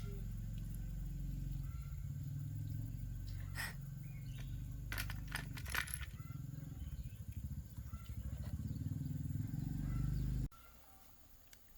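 Small chainsaw engine idling with a low, steady running note, then cut off suddenly about ten and a half seconds in. A few light clicks sound midway.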